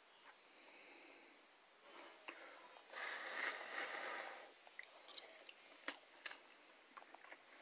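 Faint sounds of someone eating ramen noodles: a longer airy slurp about three seconds in, then chewing and a few light clicks of a metal fork against a plastic container.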